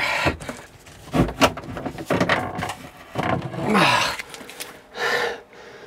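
Handling noises in a small fibreglass boat head: a few sharp knocks and clatters and some short rustles, as disposable gloves are pulled on.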